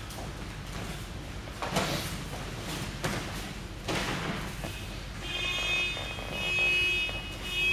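Thuds and gi rustle of an aikido partner being thrown and falling onto a vinyl-covered mat, a few sudden hits in the first half. In the second half a thin, steady high squeak-like tone comes and goes.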